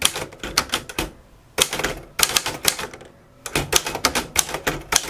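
Rooy portable typewriter being typed on, keys striking the hard, narrow platen in three quick runs of keystrokes separated by short pauses.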